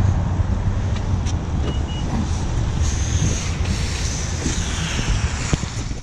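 Steady rush of wind and rain noise on the microphone, with a few knocks and clunks as a boxed microwave is loaded into a pickup.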